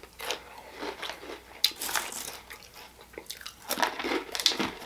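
Crunching bites and chewing of Fritos corn chips close to the microphone: a run of irregular crunches that get louder and come faster near the end.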